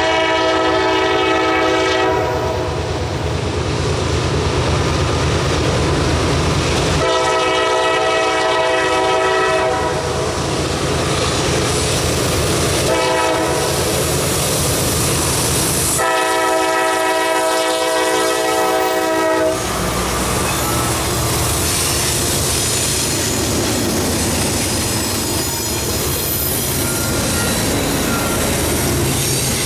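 Norfolk Southern diesel freight locomotive's multi-note air horn sounding the grade-crossing signal: long, long, short, long. The four-unit lashup of diesel locomotives then runs past with a low engine rumble, followed by freight cars rolling by with clickety-clack of wheels over the rail joints.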